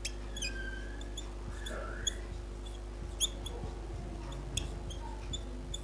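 Whiteboard marker squeaking on the board in many short, high chirps as handwriting is written, over a faint steady hum.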